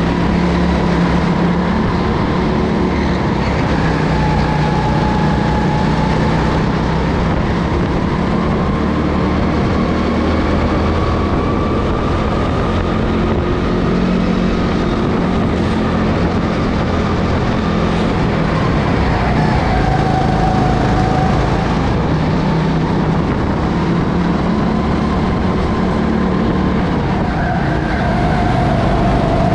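Racing go-kart engine running hard, its pitch rising and falling slowly as the kart accelerates and brakes around the track.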